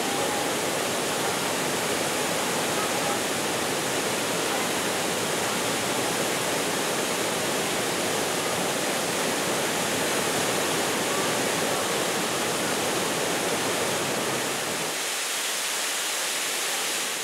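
Waterfall pouring onto rocks: a steady, even rush of water that thins a little near the end.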